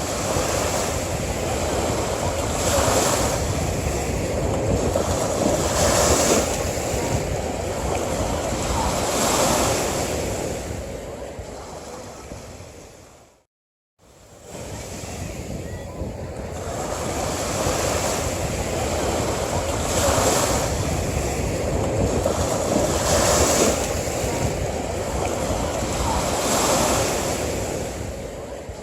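Ocean surf: waves breaking and washing up a beach, surging roughly every three seconds. The recording fades down to a moment of silence about halfway through, then fades back in and repeats the same stretch of surf.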